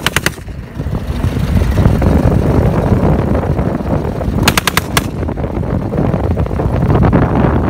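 Browning .30 caliber machine gun, converted to fire a propane-and-oxygen mix, firing rapid blank bursts: one ends just as the sound begins and another short burst of about half a second comes around the middle. Under the shots runs the steady rumble of the open car driving.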